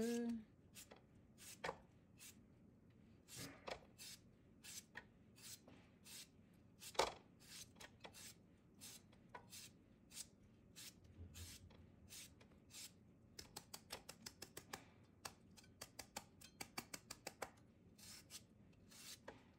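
A chef's knife shaving strips off a peeled cucumber held in the hand: a series of short, crisp cutting strokes, scattered at first, then coming quickly one after another for a few seconds in the second half.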